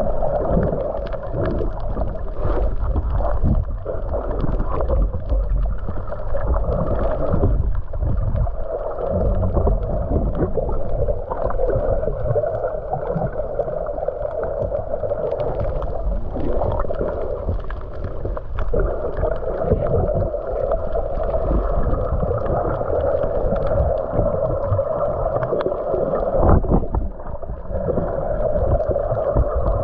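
Muffled water sloshing and gurgling with a low rumble and many small scattered clicks, as heard through a waterproof camera housing, with almost no high sound.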